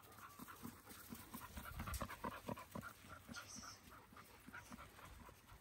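Faint dog panting, with irregular short scuffs from paws moving on gravel, loudest about two seconds in.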